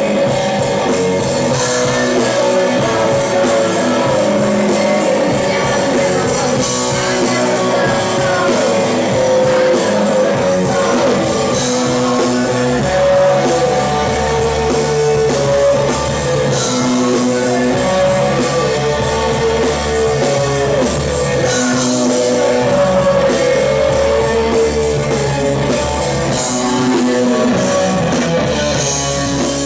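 Loud rock music from a live band heard from the audience floor of a club gig, with guitar and singing over a steady bass.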